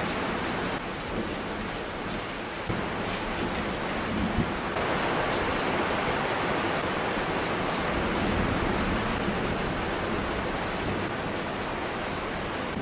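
Heavy thunderstorm rain falling steadily, a little louder from about five seconds in.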